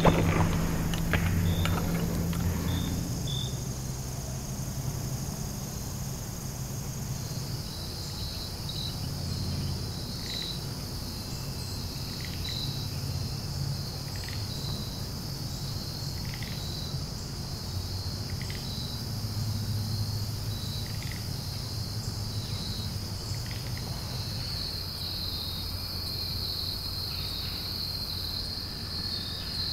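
Evening insect chorus of crickets trilling steadily, with repeated chirps, louder from about a quarter of the way in. A brief rustle in dry leaves in the first couple of seconds and a faint low hum underneath.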